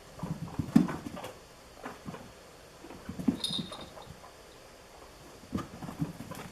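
Guinea pigs' feet pattering and thumping in quick bursts as they run laps around their enclosure, with a brief high squeak about three and a half seconds in.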